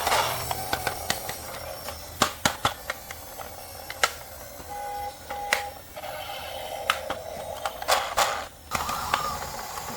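Scattered sharp plastic clicks and knocks, as of toy vehicles and their packaging being handled, with two short beeps about five seconds in.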